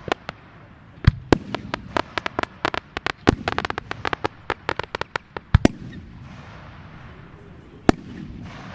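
Fireworks going off in a rapid series of sharp bangs, several a second, for about five seconds. The bangs then stop, leaving a steady hiss, with a single loud bang near the end.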